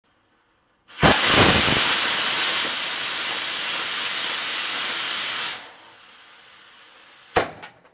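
Class C solid-propellant model rocket motor firing: a loud steady hiss starts abruptly about a second in and runs for roughly four and a half seconds, then drops to a faint hiss. Near the end a single sharp pop is followed by two smaller pops.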